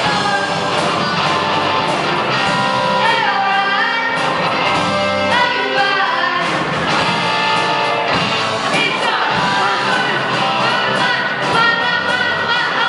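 Live amplified rock band playing, with electric guitars, electric bass and drums, and a voice singing over them.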